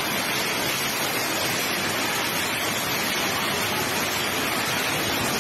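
Heavy rain falling: a steady, even rush of water noise with no breaks.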